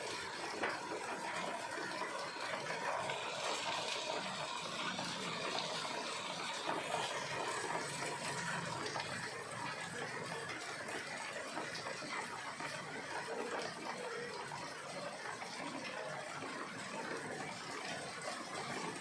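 Rain falling steadily: a continuous, even hiss of rain and water.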